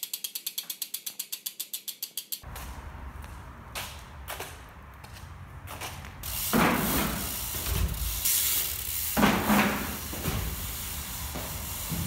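A BMX freewheel hub ratchet clicking fast and evenly as the wheel spins, slowing slightly and stopping after about two and a half seconds. After a quieter stretch with a couple of faint knocks, a louder rough rushing noise with thumps comes in about six and a half seconds in.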